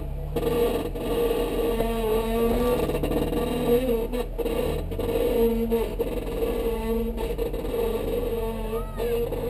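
2012 Jeep Wrangler Rubicon's 3.6 Pentastar V6 running at low speed while crawling over creek-bed rocks. It holds a steady drone and the revs rise and fall a little as it eases forward.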